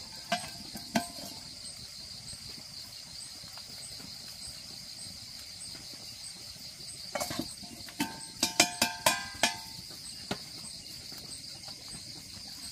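Steady chirring of crickets. A quick run of sharp, ringing clinks, like hard objects knocking together, comes between about 7 and 9.5 seconds in, with single clinks near the start.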